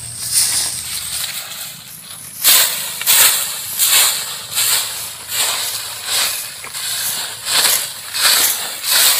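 A hand broom sweeping dry leaves and dirt: rhythmic scratchy swishes, about two a second, fainter at first and louder from about two and a half seconds in.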